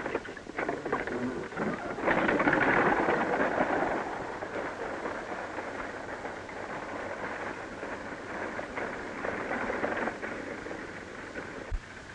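Horse-drawn buckboard wagon starting off and pulling away: a rush of hoof clatter and rattling wheels on dirt sets in about two seconds in and slowly fades as it goes.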